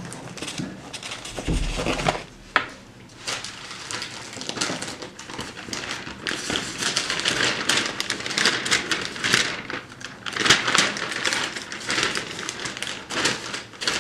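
Large sheets of paper rustling and crinkling as they are lifted, shaken open and folded, with many short crackles. A dull bump comes about a second and a half in, followed by a sharp knock.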